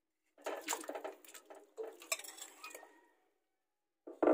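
Raw pork chunks scraped off a bowl with a plastic spoon and dropped into a stainless steel pot of water: a couple of seconds of clattering, splashing, and clinks of bowl and spoon against the pot. It starts about half a second in and stops about three seconds in.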